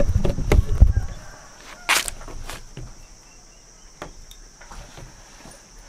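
Footsteps thudding on wooden deck boards for about the first second, with a sharp click about two seconds in. After that, scattered light clicks over a steady high insect hum.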